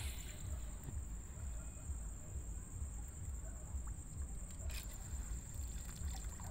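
Footsteps sloshing through shallow water, with a steady high-pitched trill of night insects throughout and a faint click about five seconds in.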